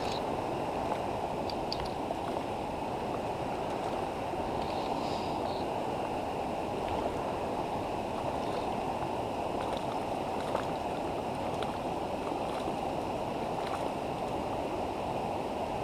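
Shallow river flowing over stones, a steady rushing of water.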